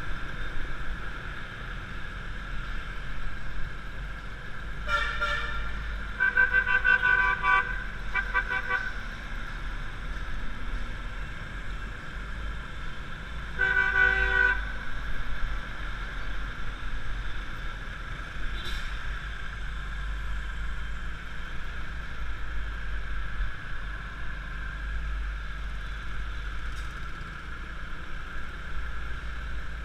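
Motor scooter riding through city traffic, a steady engine and wind rumble on a helmet-mounted camera. Vehicle horns honk over it: a cluster of short beeps between about five and nine seconds in, and another honk about fourteen seconds in.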